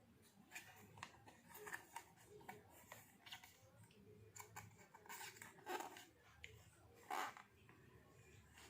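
Faint rustling of packaging and light clicks and knocks as a new air-filter box side cover is unwrapped and handled, with a couple of louder rustles in the second half.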